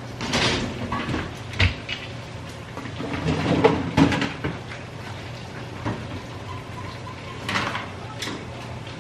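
Kitchen handling noises as a pizza is taken out to serve: an appliance or cupboard door and dishes knocking and clattering, a handful of sharp bumps spread through, over a steady low hum.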